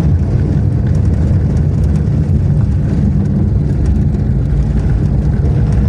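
Daewoo Matiz driving on a rough, dusty dirt road, heard from inside the car as a steady, loud rumble of engine and tyre noise.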